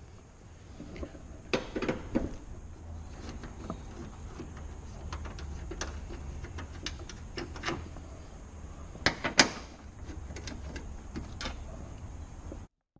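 A socket wrench on a long extension working the 10 mm mounting bolts of a car headlight: scattered, irregular clicks and knocks of metal and plastic, the sharpest a cluster about nine seconds in, over a steady low hum.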